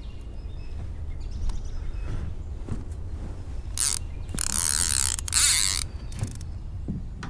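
Fishing reel ratcheting in about four short runs, the longest about a second, as its spool is worked by hand. A steady low rumble lies underneath.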